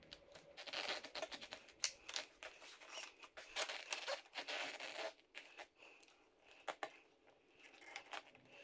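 Rustling and scraping with light clicks as small parts and tools are handled, busiest in the first five seconds and sparser after.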